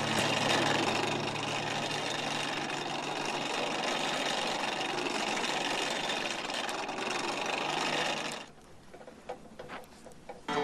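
A steady, rapid mechanical rattling noise from a hand-worked shop tool, running for about eight seconds and then stopping abruptly, after which only a few faint clicks are heard.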